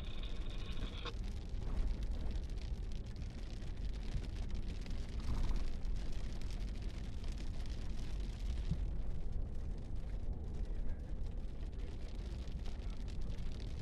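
Road and engine noise inside a moving truck's cabin: a steady low rumble. A high electronic tone stops about a second in.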